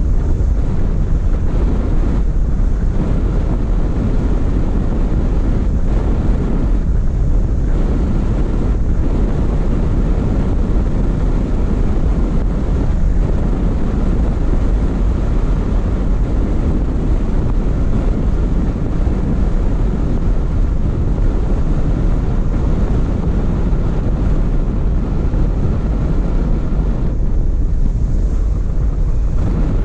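Car driving along, with a steady low road rumble and wind buffeting the microphone.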